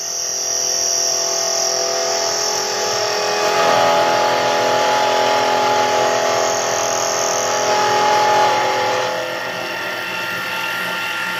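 Metal lathe parting off an aluminum ring: the cutting tool chatters and rattles against the spinning work, a steady sound of several ringing tones over a high hiss. It grows louder a few seconds in and eases near the end. The machinist puts the rattle down to an MT2 taper that is not properly seated.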